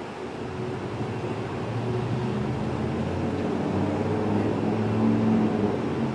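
Low, steady engine-like hum that swells over the first couple of seconds and then holds.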